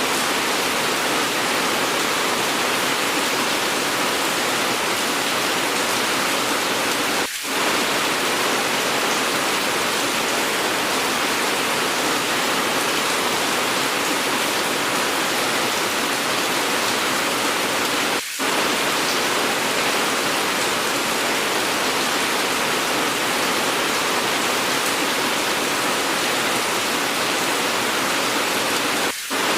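Steady, even hiss of an edited rain recording, heavy rain falling without a break. It dips briefly three times, about eleven seconds apart.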